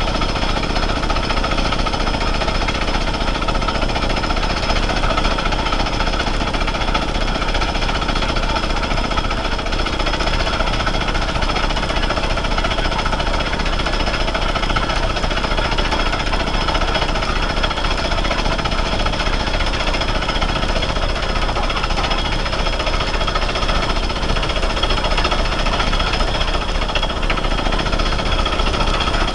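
Horizontal quarry rock drill on a feed rail, its percussive hammer drilling steadily into stone: a continuous rapid hammering rattle at an even level.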